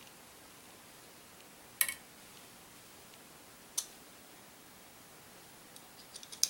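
Sharp clicks of small rifle parts being handled as the cartridge carrier of a Marlin 336 lever-action is lifted in the receiver: two single clicks about two seconds apart, then a quick run of light ticks ending in a sharper click near the end.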